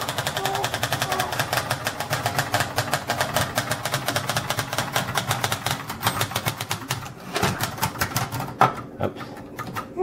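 Manual Webster portable typewriter typed fast with both hands: a rapid, steady clatter of key strikes, several a second, that thins to scattered strikes near the end. A baby's crying fades out in the first second.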